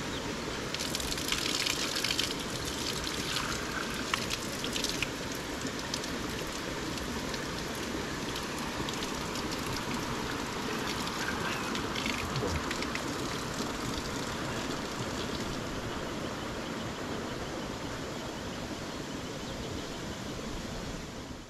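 Steady running water with a few brief splashes, about a second, four to five seconds and twelve seconds in.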